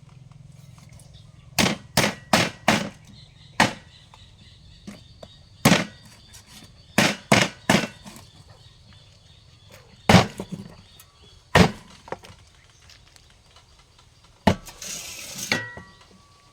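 About a dozen sharp chopping strikes of a knife on a wooden cutting board, irregular, some coming in quick runs of three or four. A brief rustling hiss follows near the end.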